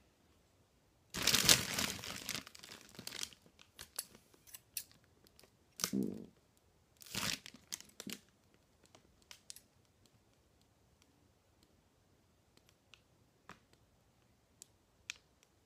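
Clear plastic wrap crinkling and rustling as it is handled, in a loud burst of about two seconds starting about a second in and two shorter bursts around six and seven seconds, followed by scattered light clicks.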